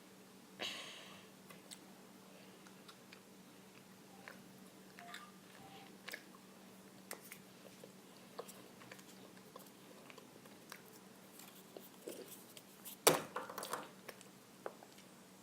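Kinder Surprise egg being opened by hand: faint scattered clicks and crunches of the chocolate shell and plastic capsule, with one sharp snap near the end.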